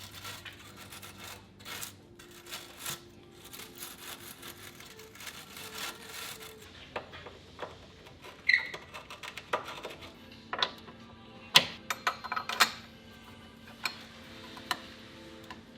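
Hand tools working seized, rusted suspension bracket bolts: a run of rapid clicking, then several sharp metallic clanks, one of which rings briefly. Faint background music sits underneath.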